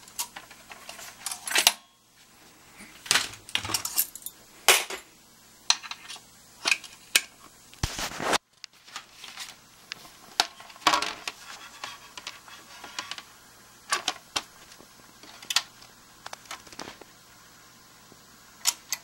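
Irregular sharp clicks, knocks and light rattles from hands working a BIC 960 turntable record changer: the record on the changer spindle and the front control buttons, with one heavier knock about eight seconds in. A faint steady hum runs underneath.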